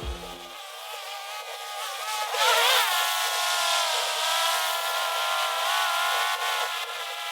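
Background music in a filtered passage with its bass cut away: sustained pitched tones and hiss, with a wavering, bending note about two and a half seconds in.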